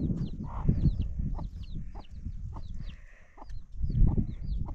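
Free-range chickens calling: a run of short, high, downward-slurred peeps repeating every fraction of a second over a few lower clucks, with a low rumble of wind on the microphone underneath.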